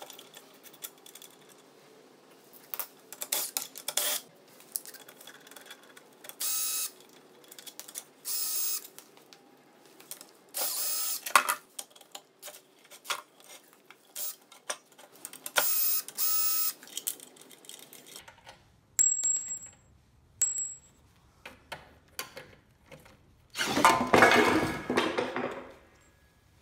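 Cordless drill/driver backing out the cylinder head bolts of a small Tecumseh snowblower engine in several short whirring bursts, with socket-ratchet clicks and metal bolts clinking on concrete. A louder rattling clatter comes near the end.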